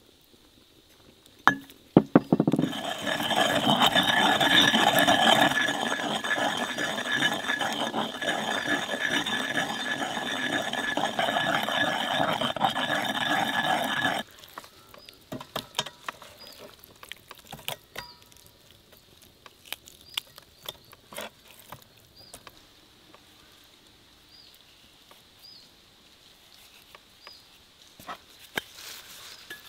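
Wooden pestle grinding and squashing a wet herb-and-oil paste in a stone mortar: a dense, crackly scraping that starts about two seconds in and cuts off suddenly about halfway through, then only scattered light taps.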